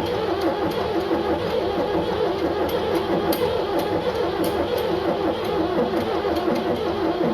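Ford 7610 diesel tractor engine being cranked by its starter, turning over steadily without firing. The tractor won't start, and the owner wonders whether it has lost compression even though fuel is reaching the lift pump.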